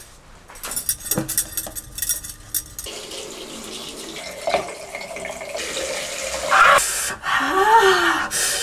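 A run of light clicks and clinks, then water running steadily from a tap into a sink from about three seconds in.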